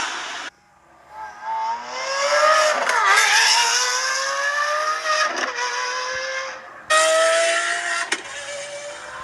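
Lamborghini engine and exhaust revving and accelerating, its note climbing steadily in pitch with a brief dip about three seconds in, like a gear change. The sound breaks off briefly near the start, and a different pass cuts in abruptly about seven seconds in.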